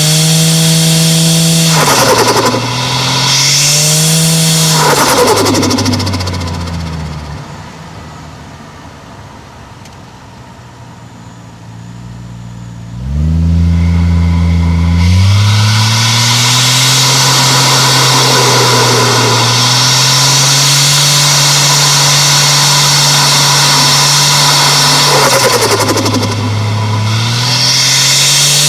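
Toyota 1JZ-GTE turbocharged inline-six engine and exhaust on a hard drive: it revs up and shifts twice in the first few seconds with a hiss of turbo flutter at each shift. It then lifts off and goes much quieter for several seconds, picks up again about 13 s in and holds a steady pull, with another shift near the end.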